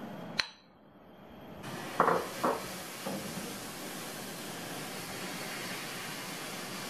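A metal ladle clinks several times against a ceramic bowl and pan while scooping and pouring crepe batter. There are three quick knocks about two seconds in and a softer one a second later, over a steady hiss.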